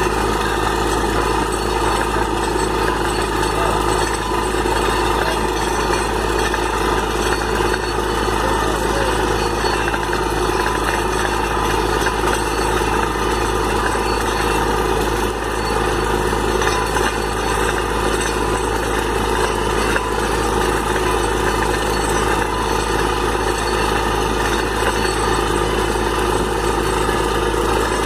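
Borewell drilling rig's engine running steadily while water and air gush and splash continuously out of the bore.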